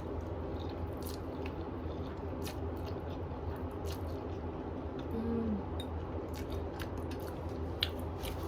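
A person chewing food, with small wet mouth sounds and scattered clicks, over a steady low hum. A brief hum of the voice comes a little after midway.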